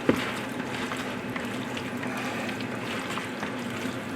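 Olive oil being poured over raw boneless chicken thighs, a soft trickle with small wet ticks and a click at the start.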